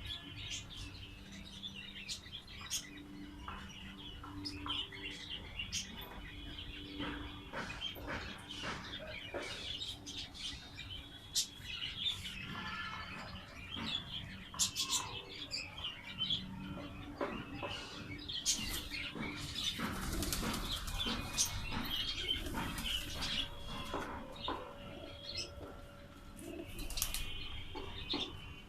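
Pigeons flapping their wings and cooing, with high bird chirps mixed in; a thicker spell of wing flapping comes about two-thirds of the way through.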